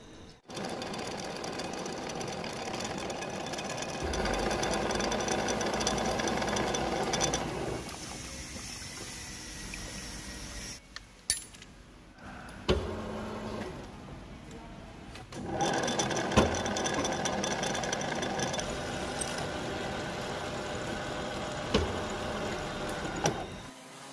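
Milling machine running as an end mill cuts into a steel gear shaft. It is louder for a few seconds, then eases off. In the middle there is a pause with a few sharp metal knocks and clicks while the cutter is changed. Then the machine runs steadily again as a twist drill bores into the shaft.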